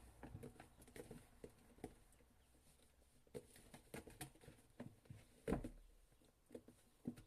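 Little kittens moving about: a faint, irregular patter of small taps and clicks, with one louder knock about five and a half seconds in.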